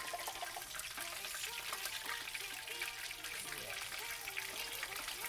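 Tilapia frying in hot oil in a stainless steel skillet: a steady crackling sizzle and spatter while the pieces are turned over with tongs.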